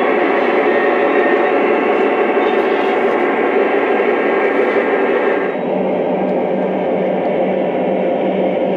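Lionel O-gauge model train cars rolling steadily along three-rail track. About halfway through this changes to the Lionel EMD DD35A diesel locomotive running, its onboard diesel sound effects adding a low, evenly pulsing hum.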